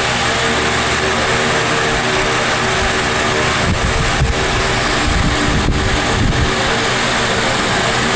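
Tron AT-60 wall fan running: a steady rush of air over a motor hum, with the airflow buffeting the microphone in low rumbles around the middle.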